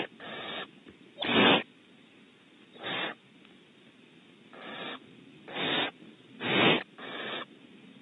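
Barn owl owlets giving repeated rasping hisses, the begging call of nestlings. There are about seven hisses, each under half a second long, spaced irregularly about a second apart.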